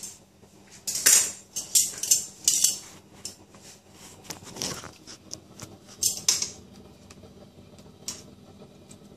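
Metal tongs clanking against a stainless steel pot in a series of short, sharp knocks, loudest between about one and three seconds in, with a few more later.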